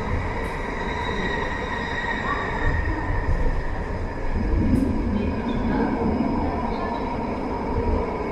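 Automatic metro train running through a tunnel: a steady rumble of wheels on rail under a steady high whine, with a couple of sharp clicks and a louder swell of rumble about halfway through.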